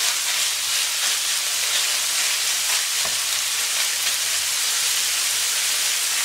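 Ground beef with chopped onion and peppers sizzling steadily in oil in a nonstick frying pan as it browns, with a wooden spoon scraping through it as it is stirred.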